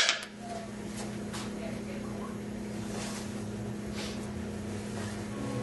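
A sharp knock at the very start, then a steady low mechanical hum with a few faint clicks.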